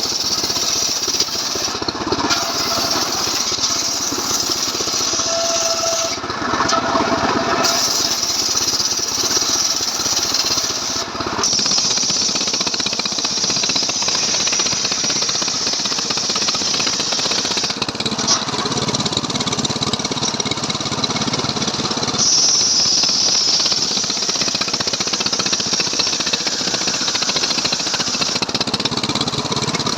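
Stihl MS 381 two-stroke chainsaw engine running steadily under load, driving a homemade saw rig through wood.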